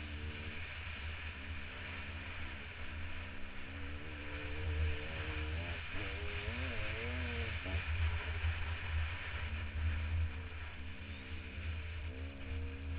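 Dirt bike engine running under throttle, its pitch holding steady, then wavering up and down in the middle as the throttle changes. Wind buffets the helmet-mounted microphone throughout, a heavy low rumble.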